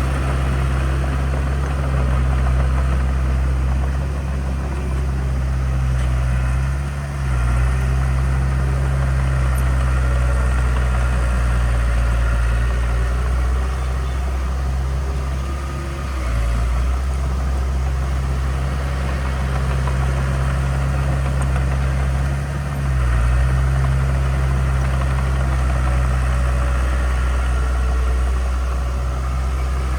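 Heavy earth-moving machine's diesel engine running steadily with a deep drone. Its note briefly dips and shifts three times, as the load on the engine changes.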